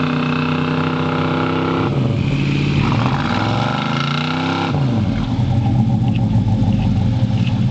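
Pickup truck engine under load in deep mud: a steady note, then the revs dip and climb back up between about two and five seconds in, before settling into a steady hard-working drone as the stuck truck is pulled.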